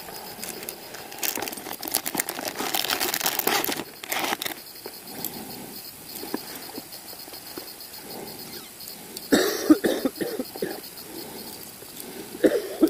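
A man coughing, the cough of someone who is ill: a harsh cluster of coughs about three-quarters of the way through and another cough near the end. Before that come a couple of seconds of crackling rustle close to the microphone.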